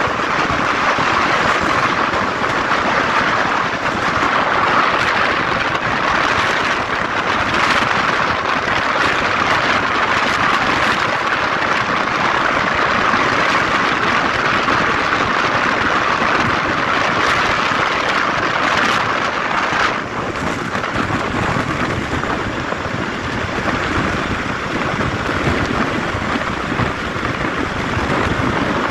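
Steady rush of wind and tyre hiss from a motorcycle riding at speed on a wet road, picked up by a helmet-mounted microphone. About twenty seconds in, the hiss drops a little and becomes lower.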